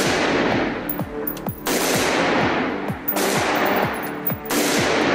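Semi-automatic AR-15 rifle in .223/5.56 fitted with a muzzle brake, firing about four shots roughly a second and a half apart, each shot ringing out in the echo of an indoor range.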